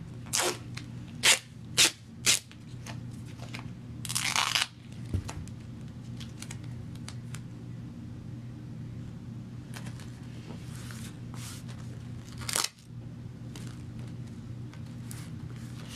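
Duct tape crackling and tearing as it is handled and pressed onto a slipper sole: a few sharp crackles in the first few seconds, a longer rip about four seconds in, then fainter rustling and one more snap as the tape is smoothed down by hand.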